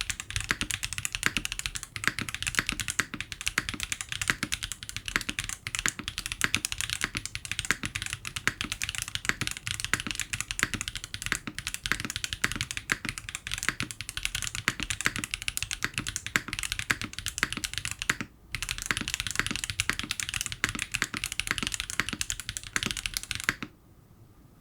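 Fast, continuous typing on a Sangeo65 mechanical keyboard with stock Wuque Studio WS Brown tactile switches on an aluminium plate, with PCB and case foam. There is a brief pause about three-quarters of the way through, and the typing stops shortly before the end.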